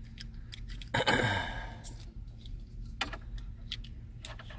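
A person gives one frustrated sigh about a second in, followed by a few light clicks of plastic connectors being handled while wiring-harness plugs are fitted to the back of a car stereo.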